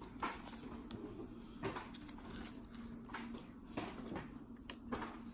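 Light handling noise: scattered soft clicks and rustles of plastic wrap as a small plastic-wrapped wireless transmitter box is turned over in the hands, over a faint steady low hum.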